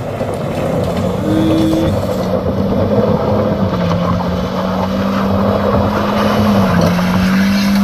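A Toyota MPV's engine revved hard and held high as the car labours up a steep slope of loose dirt, its wheels spinning and throwing up dust. The engine pitch dips slightly twice, about four and seven seconds in.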